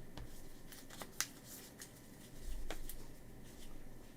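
Faint handling of trading cards: soft slides of card against card and a few light clicks, the sharpest about a second in.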